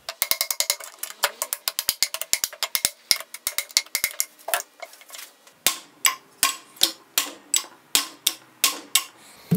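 A hammer tapping on an old bearing used as a driver, pushing the new rear bearing onto an SM465 transmission mainshaft: metal-on-metal taps. They come quickly, about five a second, for the first half. After a short pause they turn to slower strikes, about two a second, each with a brief ring.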